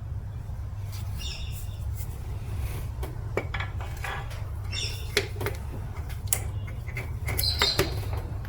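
Scattered light metallic clinks and a few short scrapes of tools and engine parts being handled while a connecting rod bearing cap is fitted, over a steady low hum.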